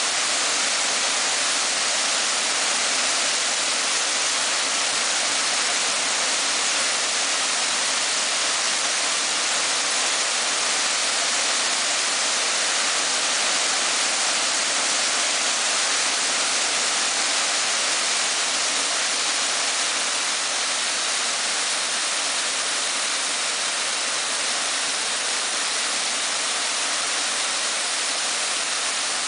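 Canal water spilling over and through closed wooden lock gates and crashing into churning white water below: a steady rushing noise.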